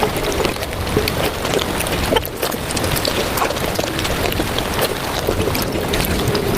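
Eating sounds of panta bhat, cooked rice soaked in water, sped up about five times: wet chewing, slurping and squelching run together into a dense, rapid patter of clicks.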